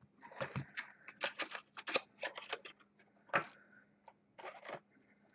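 Trading card being handled in a clear plastic sleeve and holder: an irregular string of light plastic clicks and rustles.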